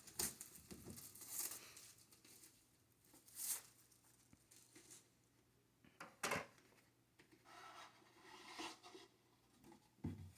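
A knife cutting and tearing the sealed wrapping of a trading card box, in several short scraping strokes spread a second or two apart.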